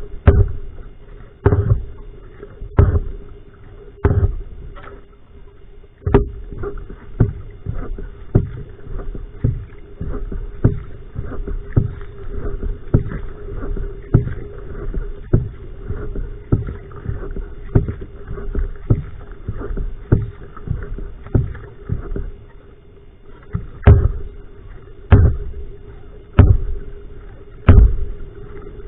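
Va'a outrigger canoe paddle strokes: a regular knock and splash with each stroke over a steady hum. The strokes come about every second and a quarter, quicken and soften about six seconds in, and slow to stronger strokes again near the end.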